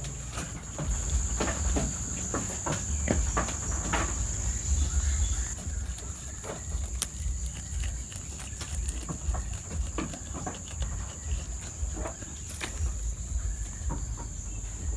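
A goat tearing at and chewing leafy awar-awar (Ficus septica) stems: irregular crisp crunches and snaps of leaves and stalks. A steady high-pitched insect drone runs underneath.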